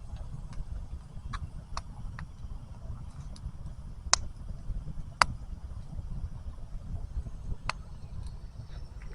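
Wood fire crackling: scattered sharp pops, the two loudest about four and five seconds in, over a steady low rumble.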